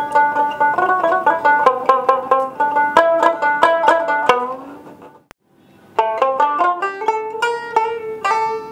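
Background music: a quick, picked melody on a plucked string instrument. It fades out about four and a half seconds in, goes almost silent for a moment, then starts again with a new phrase about a second later.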